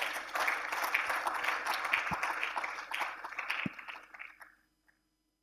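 Audience applauding, a dense patter of many hands clapping that dies away about four and a half seconds in.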